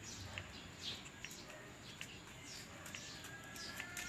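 Belgian shepherd puppies giving faint, short high squeaks that fall in pitch, several times, among light clicks.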